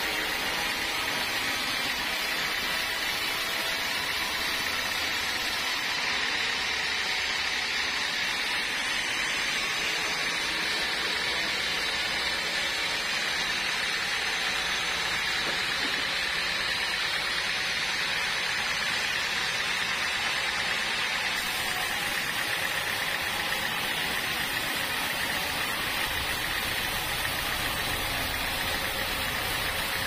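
Sawmill blade cutting lengthwise through a hard, dry log with a steady, unbroken sawing noise, the saw's motor running under load throughout.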